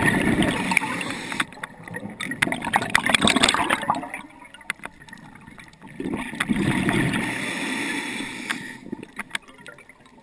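Underwater gurgling of air bubbles heard through a camera housing, in two bursts about six seconds apart, with crackling clicks in between.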